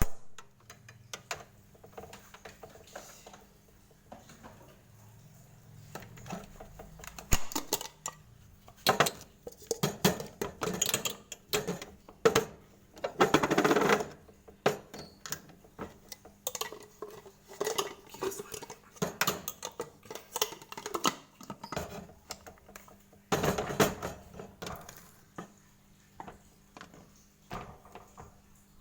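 A handyman's metal tools and parts being handled: irregular clanks, taps and clicks, with a couple of longer scraping bursts.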